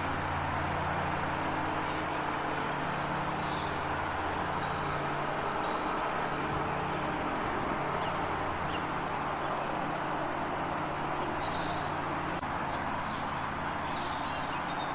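Small birds chirping in short, high, quick notes, in two spells a few seconds apart, over a steady low hum and hiss.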